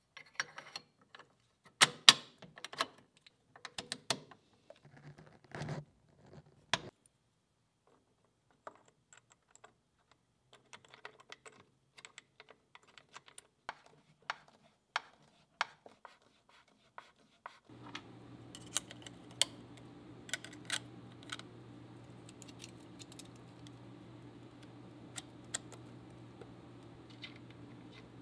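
Small, sharp metal clicks and taps of SKS rifle parts being handled and fitted: the stamped receiver cover seated over the recoil spring, then a screwdriver working a buttplate screw in the wooden stock. The clicks come thick and loud at first, then sparse, and a steady low hum comes in under them about two-thirds of the way in.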